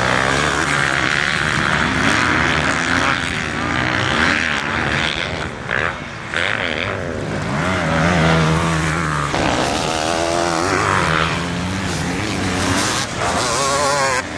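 Several motocross dirt bikes racing, their engines revving up and down in overlapping notes that rise and fall in pitch as the riders work the throttle and shift gears.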